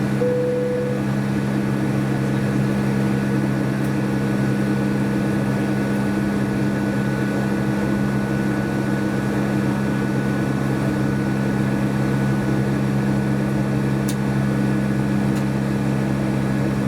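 Steady engine and airflow noise in the cabin of a Boeing 757 in flight with Rolls-Royce RB211 engines: a constant low hum under a thin steady whine. A short electronic tone sounds in the first second.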